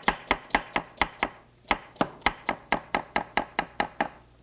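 Chef's knife slicing a peeled carrot into rounds on a wooden cutting board: quick, even chops about four a second, with a brief pause about a second and a half in.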